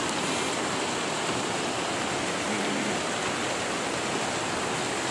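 Floodwater rushing fast over and along a railway track, a steady, even rush of churning water.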